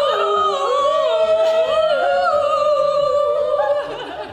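Several women's voices singing together in long, held, wavering notes that break off near the end.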